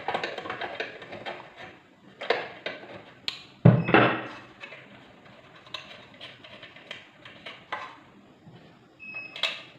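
Light clicks and knocks of small metal parts and hand tools being handled inside an opened rice cooker as an old wire is taken out, with one louder thump about four seconds in.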